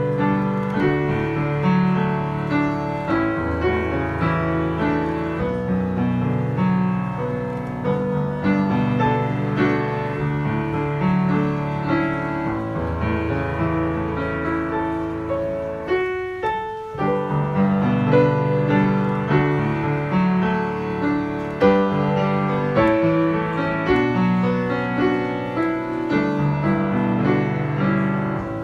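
Piano music playing, with a short break in the notes just past halfway.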